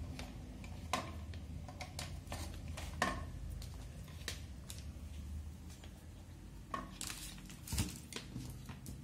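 Handling noises of a smartphone and USB charging cable being moved about on a wooden table: scattered sharp clicks and knocks, with a brief rustle of plastic packaging a little after the middle.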